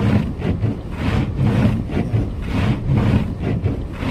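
Car driving through a blizzard: a steady low rumble of engine and road noise with uneven, gusting wind noise.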